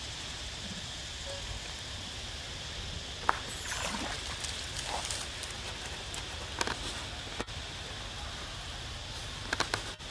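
A macaque splashing as it swims and pulls itself out of a pool onto stone steps, with water dripping off it, over a steady hiss. There is a sharp splash or click about three seconds in, more splashing over the next two seconds, and a quick cluster of clicks near the end.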